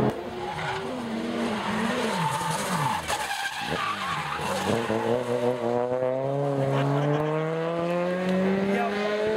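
Rally car engine coming off the throttle and braking into a corner, its revs falling, while the tyres slide and skid through the bend. From about five seconds in the engine pulls hard away, its revs rising steadily.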